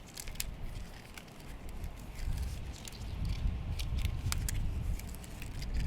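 Nylon trimmer line being handled and wound onto a plastic string-trimmer spool: scattered sharp clicks and light rustling, with a low rumble from about two seconds in.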